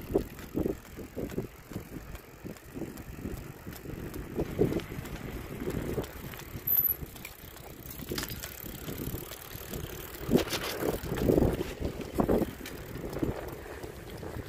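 Bicycles rolling along a paved road, with wind buffeting the microphone in an uneven low rumble. A few louder bumps come about two-thirds of the way in.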